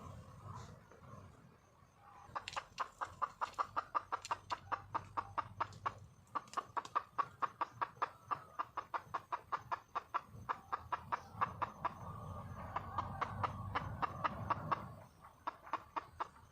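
Red junglefowl hen clucking in a rapid, even series of short clucks, about five or six a second, with a brief pause a few seconds in; the call of a wild hen calling for a mate.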